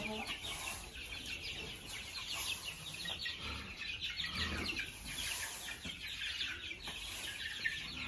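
A flock of young chickens peeping and cheeping continuously in many short, high chirps, with a shovel scraping over the straw-covered floor now and then.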